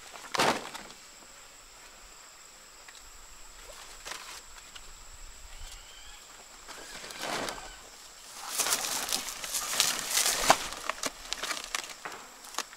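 Banana leaves and dry leaf sheaths rustling and crinkling as banana suckers are handled and laid down on loose dirt. There is a quick swish about half a second in, then a burst of crackling rustles in the last third.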